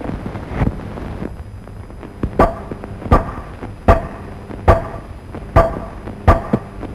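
Slow, evenly spaced knocks, about one every three-quarters of a second, starting a couple of seconds in, each with a short hollow ring, over the steady hiss of an old soundtrack.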